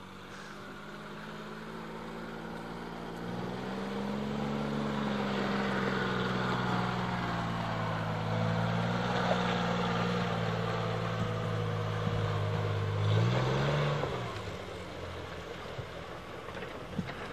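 Jeep CJ's engine labouring up a steep dirt hill, growing louder over the first few seconds and then holding a steady pitch. About 13 seconds in it revs up briefly and drops away.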